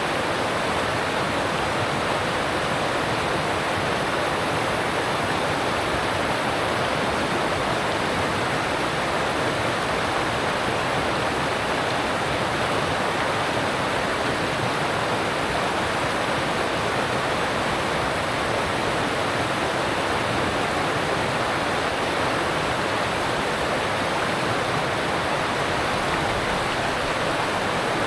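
Alpine stream rushing over rocks: a steady, even roar of water.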